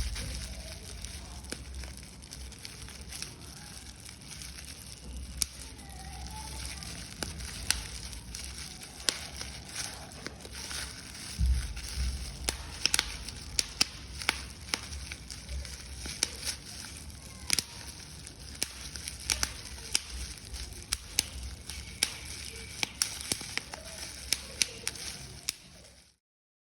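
Paper being crumpled and crushed by hand: continuous irregular crackling and crinkling with many sharp snaps, cutting off suddenly near the end.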